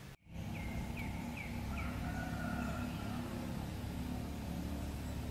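Outdoor ambience: a steady low rumble, with a small bird giving four quick falling chirps in the first two seconds.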